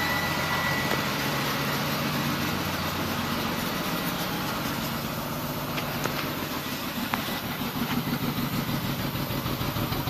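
2002 BMW 525i's 2.5-litre straight-six idling roughly with a misfire in cylinders 2 and 4: an uneven, stumbling beat in the exhaust that grows choppier about two thirds of the way in, close to the tailpipe. The owner suspects a failing ignition coil.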